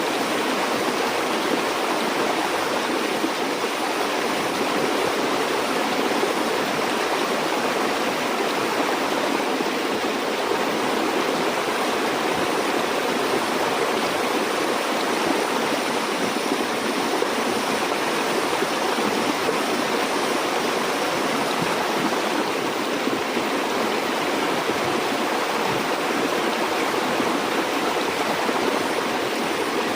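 Stream water flowing over rocks, a steady even rushing and burbling with no breaks.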